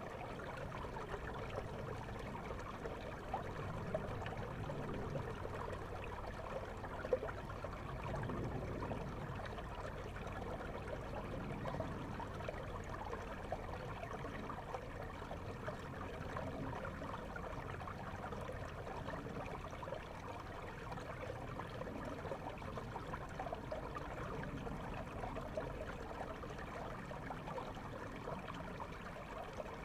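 River water flowing, heard through a GoPro held underwater: a steady rush, with one sharp click about seven seconds in.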